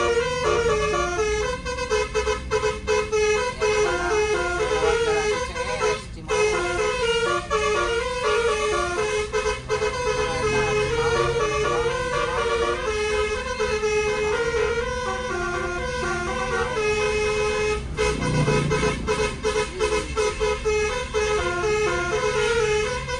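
A bus's telolet horn, a Basuri melody module driving a roof-mounted set of twelve air-horn trumpets, playing a tune of quick, changing notes. The bus engine runs underneath.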